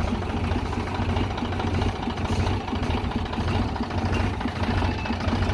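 Sonalika tractor's diesel engine running steadily with an even low hum.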